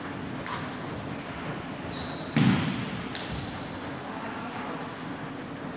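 A single dull thump about two and a half seconds in, with short high squeaks just before it and again a second later.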